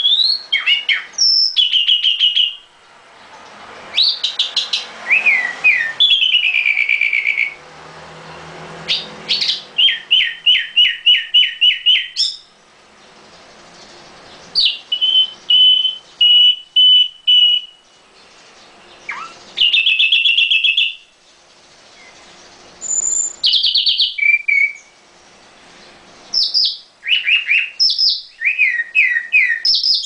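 Red-billed leiothrix (Pekin robin, the 'Chinese nightingale' cage bird) singing: loud phrases of quick repeated whistled notes, each lasting a second or two, with short pauses between them.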